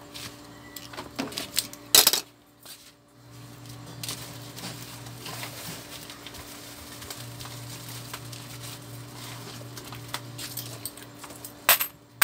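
Garlic cloves being hand-peeled and handled over a plastic basket: light clicks and rustles, with a sharp clatter about two seconds in and another near the end, over a steady low hum.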